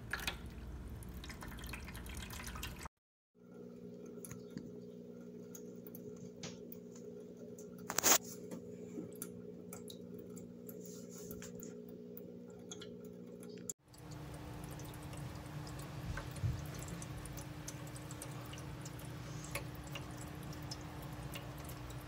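PetSafe Drinkwell 2-gallon pet water fountain running: water trickling from the spout into the bowl over a steady pump hum. The sound drops out briefly twice, and there is one sharp click about eight seconds in.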